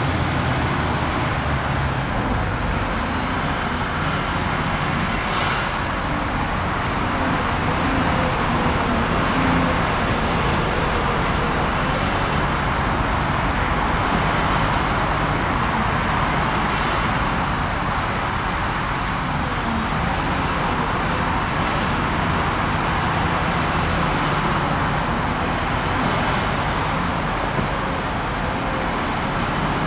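Diesel engine of a LiuGong 930E tracked excavator running steadily while it digs and loads soil into a tractor-drawn trailer, a continuous low engine hum with no speech.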